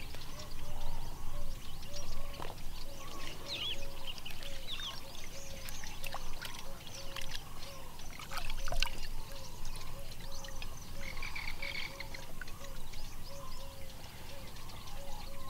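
An animal calling with a short, low note repeated steadily about two or three times a second, while birds chirp now and then higher up.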